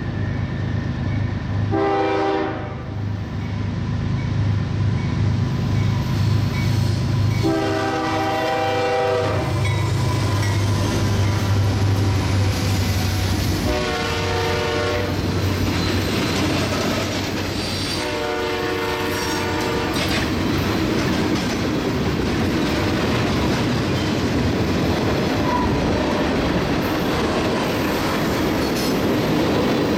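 CSX diesel freight locomotive sounding its horn in four blasts, the first shorter than the other three, over the drone of its engine. After the locomotive passes, about halfway through, the freight cars roll by with a steady rumble and wheel clatter.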